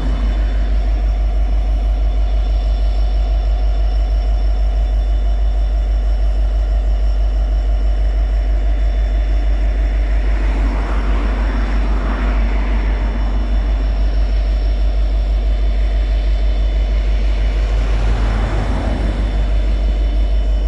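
EMD 16-710G3 turbocharged two-stroke 16-cylinder diesel engine of an SD70LC locomotive running steadily with a deep, even drone. A rushing noise swells briefly twice, around the middle and near the end.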